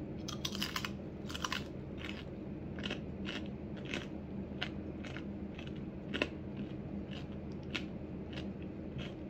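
A person chewing crispy fried bacon close to the microphone: irregular crunching and crackling bites through the whole stretch, over a steady low hum.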